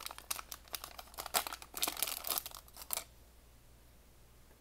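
Foil blind-bag packaging crinkling and rustling in the hands as a Beyblade part is pulled out of it. The crinkling stops about three seconds in.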